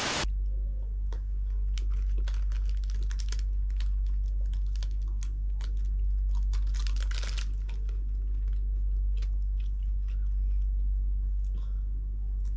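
Plastic bag crinkling and food being chewed: scattered short crackles and clicks over a steady low hum.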